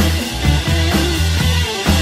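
Background music with a driving beat: a bass line that changes note with the beat, and drum hits about every half second.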